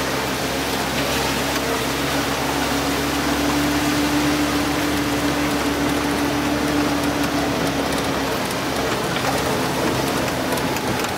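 Off-road 4x4's engine running with a steady low drone under a constant, dense rushing hiss.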